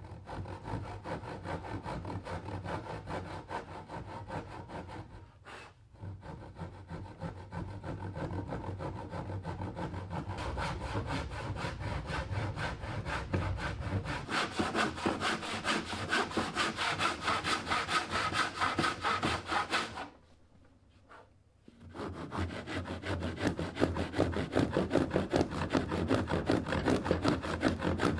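Hand saw cutting through wood in quick, steady back-and-forth strokes, pausing briefly twice and then resuming louder.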